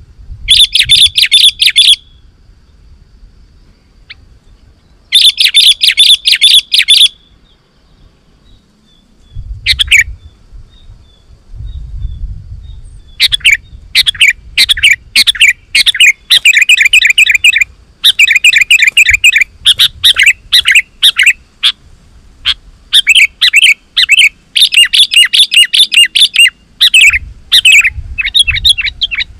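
Sooty-headed bulbul (kutilang) singing energetically in rapid chattering phrases. Two short bursts come in the first few seconds, and after a pause of several seconds a near-continuous run of quick repeated phrases follows.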